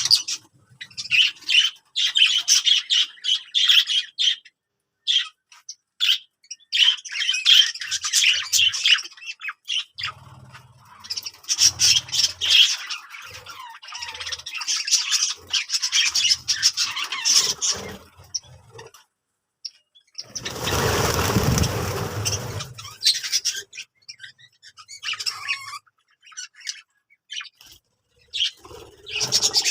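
Budgerigars chirping and squawking in repeated bursts. About two-thirds of the way through, a louder noisy burst lasts around two seconds.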